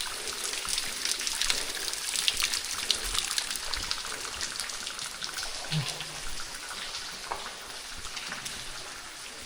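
Rain falling: an even hiss full of many small irregular ticks of drops.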